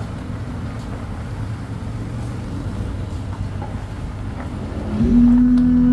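Low rumbling noise from a JBL speaker system. About five seconds in, a loud steady low tone starts and holds: the opening of a sound-check track played through the speakers.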